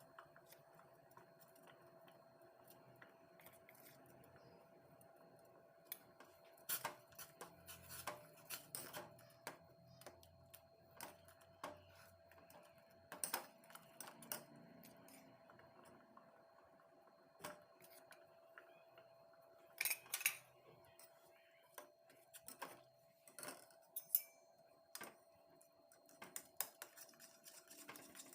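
Scattered clinks and light scrapes of a metal spoon against a cooking pot while horse gram malt is stirred, with a faint steady hum underneath.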